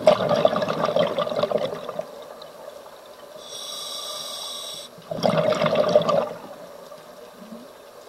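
Scuba diver breathing through a regulator: a burst of exhaled bubbles, a steady hiss of inhaling about three and a half seconds in, then a second burst of bubbles about five seconds in.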